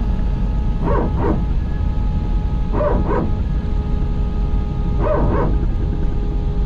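Airbus A320-family hydraulic power transfer unit (PTU) barking from the cabin: a dog-like double yelp about every two seconds, three times, over the steady whine and rumble of the engine at taxi. It is a really weird noise to the passenger, but it is the normal sound of the PTU cycling to even out hydraulic pressure, typical of taxiing with one engine running.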